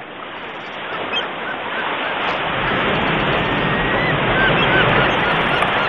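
Steady wash of sea surf, swelling over the first couple of seconds, with faint short bird calls through it.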